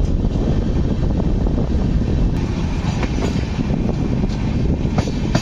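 Passenger train running at speed, heard from the open doorway of a coach: a steady rumble of wheels on rail with a few sharp clacks.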